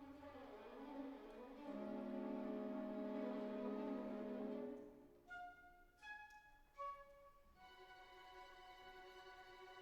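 Instrumental background music: long held chords, then a few short separate notes about five to seven seconds in, then held notes again.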